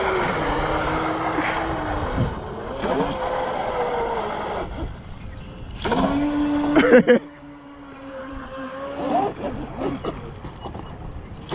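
Electric motor of a radio-controlled speedboat running, its pitch rising and falling with the throttle. A louder burst of revving about six seconds in cuts off suddenly.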